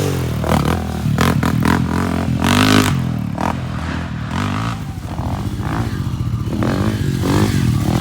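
A single-cylinder off-road engine revving up and down repeatedly under throttle, with clattering and scraping mixed in.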